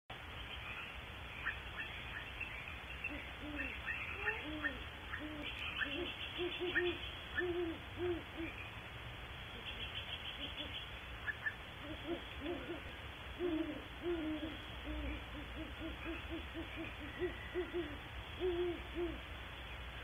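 Great horned owl hooting: series of short, low hoots repeated through most of the stretch. Short high chirps, some in quick trains, come in among them during the first half.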